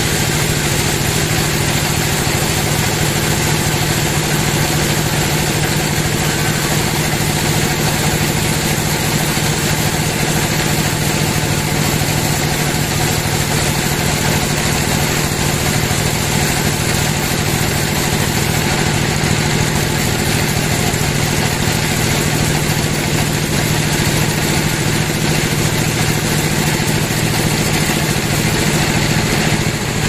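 Band sawmill running steadily as its blade cuts lengthwise through a teak log: a constant mechanical drone with a strong low hum.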